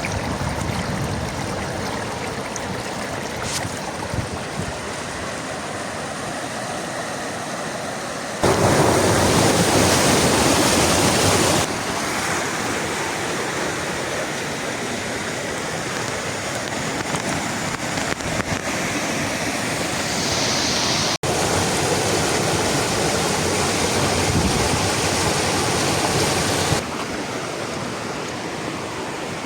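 Rushing water of a waterfall, a steady full-range rush of noise. It jumps in loudness at several cuts and is loudest for about three seconds starting some eight seconds in.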